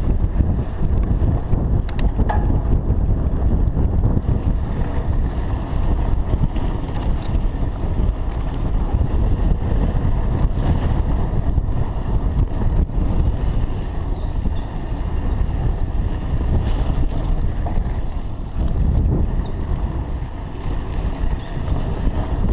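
Wind buffeting a GoPro's microphone as a mountain bike rides fast down a dry dirt trail, mixed with the rumble of the tyres over dirt. There are a couple of sharp clicks from the bike about two seconds in and again around seven seconds.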